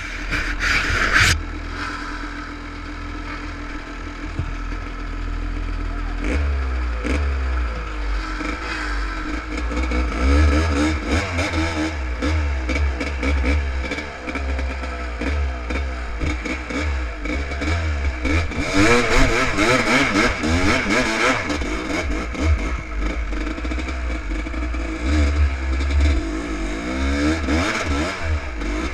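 Enduro motorcycle engine running steadily for about the first six seconds, then revving up and down continually as the bike is ridden, with some rattling.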